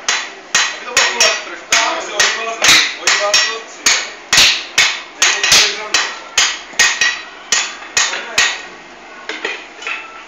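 Blacksmiths' hand hammers striking hot iron on an anvil, two to three blows a second in an uneven rhythm, with a steady ring from the anvil. The blows stop about eight and a half seconds in, followed by a few lighter taps near the end.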